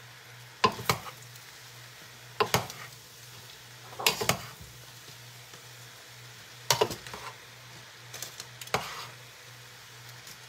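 Metal tongs clanking against a large stainless steel pot as noodles and vegetables are tossed, sharp clanks in little clusters every second or two, over a steady low hum and faint sizzling.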